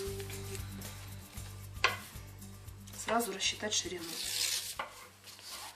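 Paper rustling as a folded sheet is handled, with a sharp tap about two seconds in, then a kitchen knife slicing along the fold of the paper in short rasping strokes in the second half.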